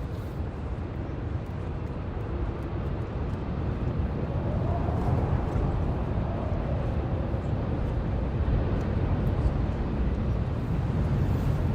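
Steady low roar of breaking surf and wind, swelling about four seconds in.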